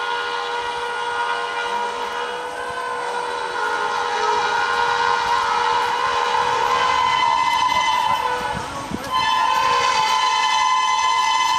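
WAP-7 electric locomotive's horn blowing one long sustained blast, breaking off briefly about nine seconds in and then sounding again.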